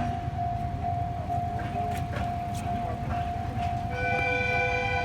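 Level crossing warning alarm ringing with a steady, slightly pulsing tone. About four seconds in, a train horn blows and is held.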